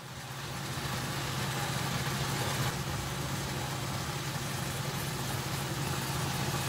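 A kitchen fan running steadily: a constant low hum under an even hiss, swelling slightly over the first second.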